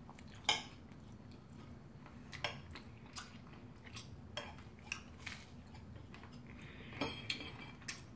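Steak knife and fork clinking and scraping on a ceramic dinner plate as a steak is cut, heard as a scattered handful of short, light clicks. The sharpest click comes about half a second in, and a small cluster follows near the end.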